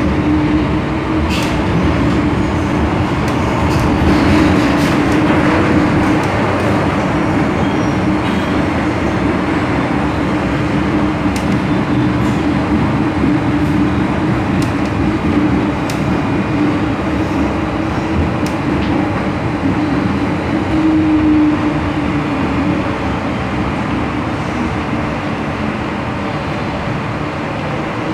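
MTR M-Train electric multiple unit running, heard from inside the car by the door: a steady rumble of wheels on rail with a steady hum, as the train comes out of the tunnel alongside a station platform. The noise eases a little near the end.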